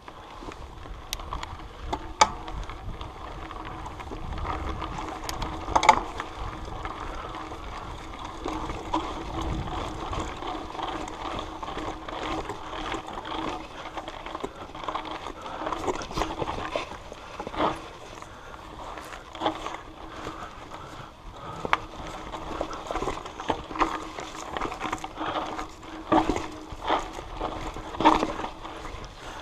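Mountain bike ridden along a dirt trail: steady rolling tyre and drivetrain noise with frequent sharp knocks and rattles as the bike and the shaking camera mount jolt over the ground.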